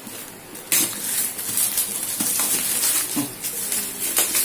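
Microphone box packaging being forced open by hand: rustling and scraping, with a sharp crack a little under a second in.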